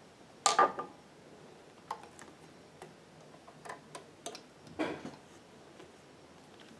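Small metal clicks and clinks of an industrial sewing machine's feed dog and its screws being worked loose by hand and taken out of the machine. There are two louder clinks, about half a second in and just before five seconds, and lighter ticks in between.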